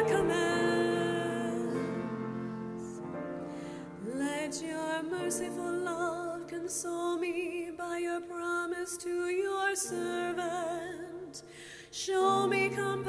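A female cantor sings the responsorial psalm with vibrato over steady instrumental accompaniment. About four seconds in, her voice slides up into a new phrase. The music dips briefly just before the end and then picks up again.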